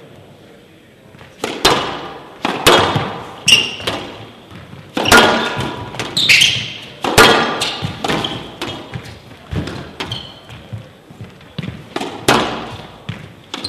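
Squash rally: a hard rubber squash ball struck by rackets and hitting the court walls, sharp impacts about one a second that start about a second and a half in, each ringing on in a large hall, with brief high squeaks of shoes on the court floor.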